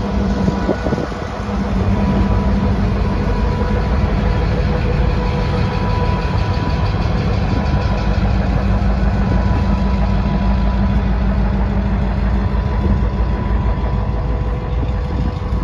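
Diesel locomotive's engine running steadily under power as the train pulls out, a loud low drone that steps up a little about a second and a half in and then holds even.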